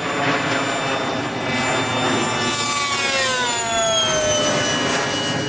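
Radio-controlled model jet fighter making a low, fast pass: a steady rushing jet noise, with its high engine whine dropping in pitch about three seconds in as it goes by.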